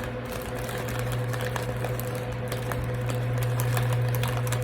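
Steady low electrical hum with a fainter, higher steady tone, and scattered small clicks and ticks over it.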